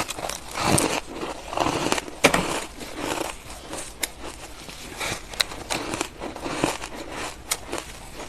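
Ice being bitten and chewed close to the microphone: irregular sharp cracks and crunches.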